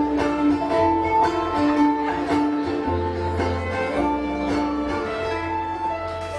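Live band music: a violin plays a melody of held notes over guitar and a steady low bass line.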